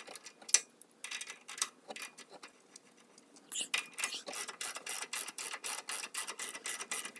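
Hand ratchet wrench clicking as the new tie rod nuts are tightened. The clicks come in short scattered strokes at first, then settle into an even run of about four a second.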